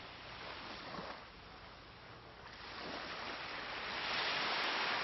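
Gentle surf washing over a sandy beach. A wave rolls in and the hiss of the water swells louder toward the end.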